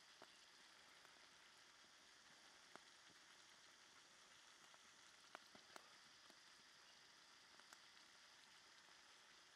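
Faint, steady simmering of broth in a pan of noodles over a campfire, with a few soft clicks and pops scattered through it.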